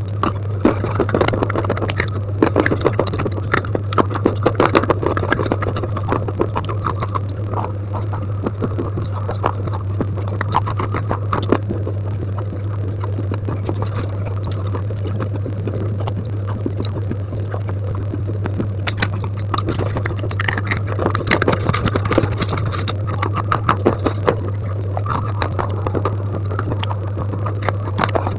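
Fingers squelching and mixing a wet mash against a steel plate: dense, crackly, sticky clicks and scrapes that come in busy stretches, over a steady low hum.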